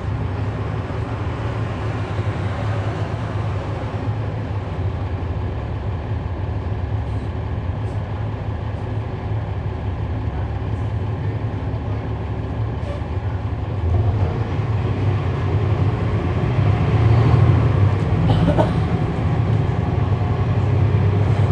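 Cummins ISL9 inline-six diesel engine of a NABI 40-SFW transit bus, heard from inside the bus with the HVAC off. It runs with a steady low drone and grows louder about two-thirds of the way in.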